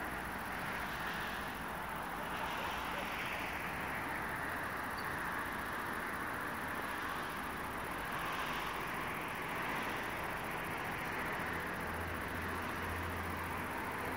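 Distant road traffic: a steady hum that swells and fades gently every few seconds.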